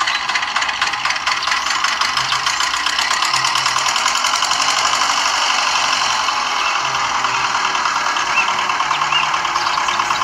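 Miniature model single-cylinder engine running steadily, driving a belt-driven mini water pump, with a rapid, even clatter.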